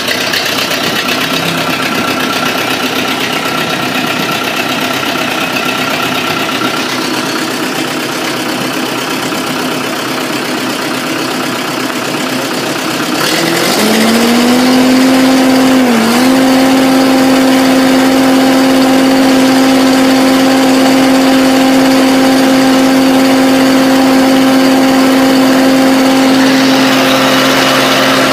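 John Deere 4850's six-cylinder turbodiesel engine, out of the tractor, running at low idle, then throttled up about halfway through to a steady high idle with a strong whining tone. The pitch dips briefly a couple of seconds after the rise. This is a test run of a used engine that holds about 50 psi oil pressure at low idle and 60 at high.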